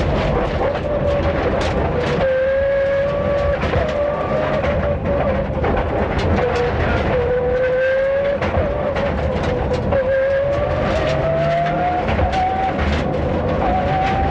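Rally car engine pulling hard through the gears, its pitch climbing and dropping back at each gear change, heard from inside the cabin. Gravel clatters against the car with frequent sharp clicks.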